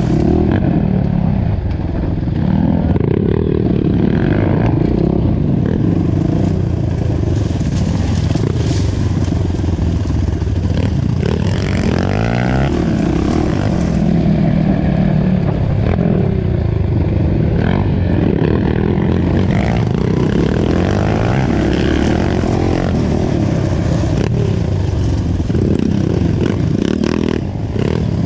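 Off-road dirt bike engine heard close up from the rider's own bike, running loudly and continuously, its pitch rising and falling again and again with throttle and gear changes on a forest trail.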